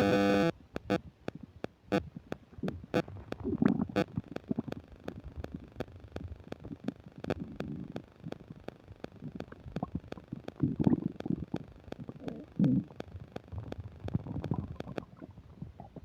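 Upset human stomach gurgling and rumbling while digesting a meal, picked up close by a microphone, in irregular low swells, the strongest a little past the middle. Over it, a loud buzz lasts half a second at the start, then the microphone's static ticks about three times a second and stops shortly before the end.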